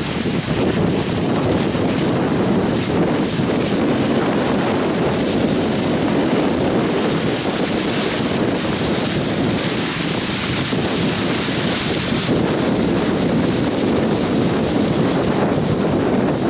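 Steady wind buffeting the microphone over the rushing of a river current carrying broken ice floes and slush.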